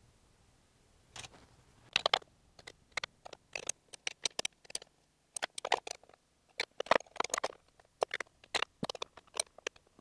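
Irregular small clicks and light metallic taps of spanners on the fuel line fittings and of hands handling the lines and connectors in the engine bay.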